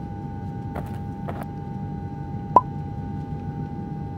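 A steady hum with a few faint taps and one sharp click about two and a half seconds in.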